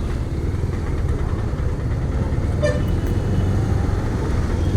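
Steady low rumble of a motorcycle riding at highway speed, engine and wind noise mixed. A brief vehicle horn toot sounds about two and a half seconds in.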